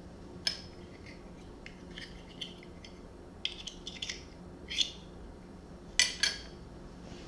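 Small, sharp metal clicks and scrapes from handling the reassembled petrol lighter pipe insert, a dozen or so scattered through, the loudest two close together about six seconds in.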